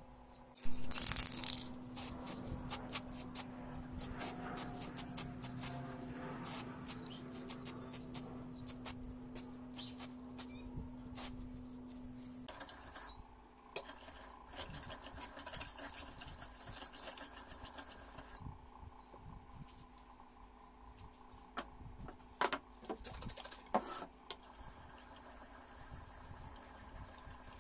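Steel cleaver blade being rubbed over a wet sharpening stone: irregular metallic scraping and clinking as the blade is worked back and forth.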